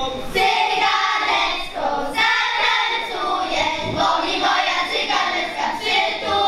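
Children's folk group singing together, many young voices in unison.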